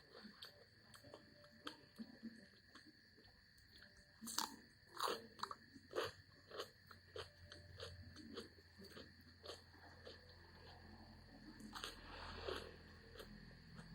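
Close-up chewing and crunching of food, with many small wet mouth clicks; the crunches are loudest about four to six seconds in, with another louder spell near the end.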